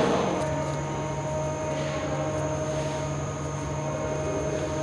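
A steady hum, with a couple of faint soft rustles about two seconds in as gloved hands pack rolled stuffed grape leaves into a pot.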